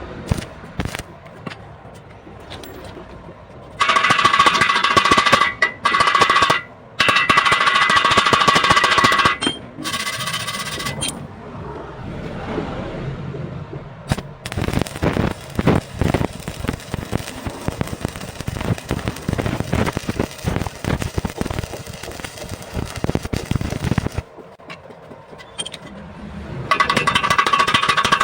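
Arc welding on square steel tubing. There are bursts of a steady, high-pitched electric buzz, then about ten seconds of rapid, irregular crackling from the arc, and the buzz returns near the end.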